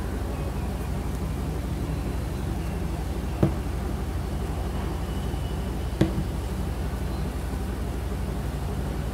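Steady low hum under two sharp clicks about three and a half and six seconds in, as a Canon 50mm lens with a Viltrox EF-E adapter and lens hood is handled.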